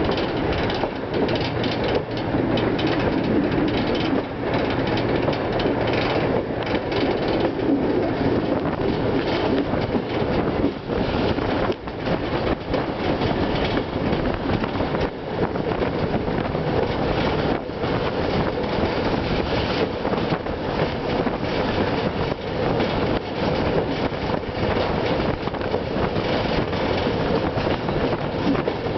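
Tourist train running along the track heard from its open-air wagon: a steady rumble of steel wheels on the rails with irregular clacks over the rail joints.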